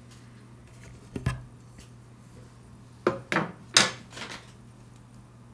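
Small metal watchmaking tools being handled at a workbench: about five light clinks and knocks, one about a second in and a quick cluster past the middle, over a steady low hum.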